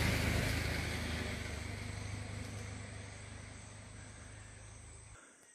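A distant engine drone with a steady low hum, fading gradually; the low hum cuts off sharply near the end.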